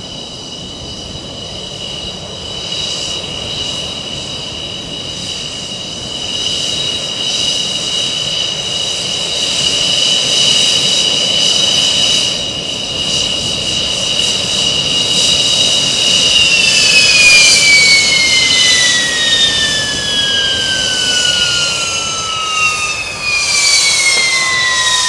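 Twin Klimov RD-33 turbofans of a MiG-29UB two-seat fighter running at taxi idle with a steady high whine over a rushing roar. About two-thirds of the way through, the whine starts falling steadily in pitch as the engines are shut down and spool down.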